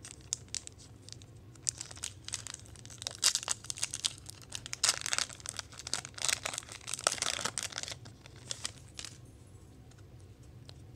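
Foil trading-card booster-pack wrapper crinkling and tearing in the hands as it is opened, a run of dense crackles that dies away about nine seconds in.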